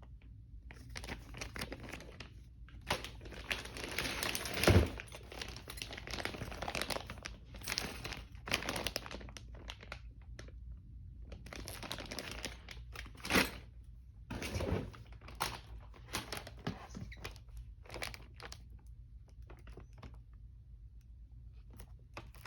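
Packaging of a radio-control car kit being handled and opened: irregular crinkling and rustling in bursts, with two sharper, louder knocks, one about five seconds in and another near thirteen seconds.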